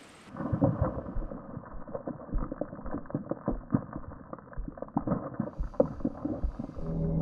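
A muffled, crackling rumble of dense, irregular thumps and pops, cut off sharply at the top, starting abruptly a moment in: a designed film sound effect. Near the end a low musical drone comes in.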